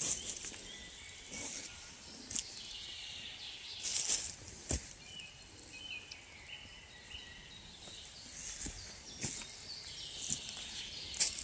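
Footsteps through dry fallen leaves on a forest floor: irregular rustling and crunching that comes and goes with each step, with a couple of sharper cracks. Faint bird chirps sound in the middle.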